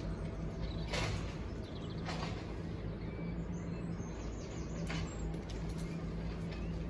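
An engine running steadily with a low hum, with three short sharp knocks about one, two and five seconds in.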